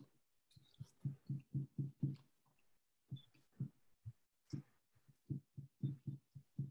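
Soft, dull taps of a paint-loaded sponge dabbing paint through a stencil onto a paper envelope on a table, in quick runs of about four a second with a short pause partway through.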